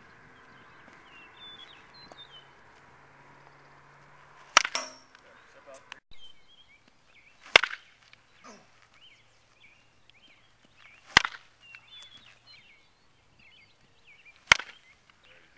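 Baseball bat hitting tossed baseballs: four sharp cracks, about three to three and a half seconds apart.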